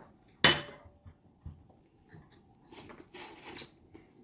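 A single sharp clink of tableware, with a short ring after it, about half a second in, then faint scattered small noises of eating at the table.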